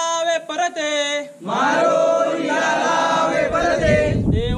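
A group of men chanting a prayer together, holding long steady notes; about a second and a half in the sound thickens as more voices chant at once. A low rumble comes in about three seconds in.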